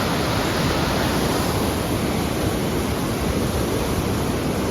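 Mountain river swollen with snowmelt, rushing steadily.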